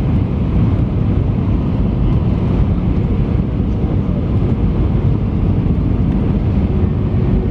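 Steady cabin noise inside an Airbus A319 on approach: an even, loud rush of airflow and jet engine noise heard from a window seat over the wing.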